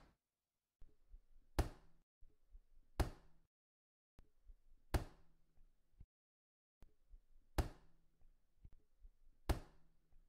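Hammer blows: five sharp knocks, one every two seconds or so, each with a brief ring.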